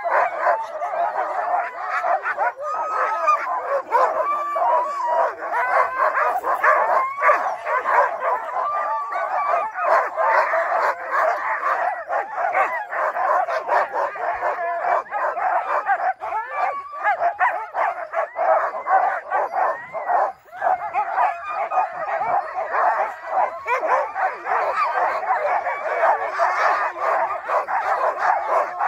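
A pack of harnessed sled dogs barking, yipping and howling all at once in a continuous, overlapping din, with a drawn-out howl now and then: the excited clamour of a sled team hitched to the line and waiting to run.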